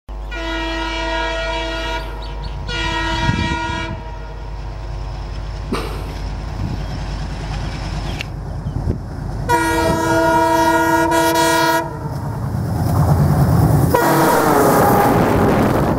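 WDM3D diesel-electric locomotive approaching at speed, sounding its air horn in three blasts of about two seconds, one second and two seconds over the low rumble of its diesel engine. Near the end it rushes past close by with a surge of engine, wheel and rail noise, the horn sounding once more with its pitch dropping as it goes by.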